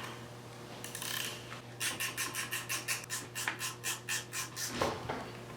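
Ratchet wrench clicking quickly, about six clicks a second for some three seconds, backing off the nuts on the long rods of a Triumph A-type overdrive so that the clutch springs release.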